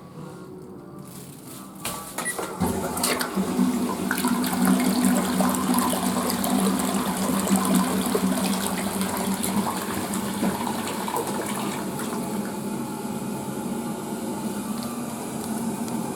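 Western-style flush toilet flushing: rushing water starts about two and a half seconds in, is loudest for several seconds, then settles into a steadier, slightly quieter run of water.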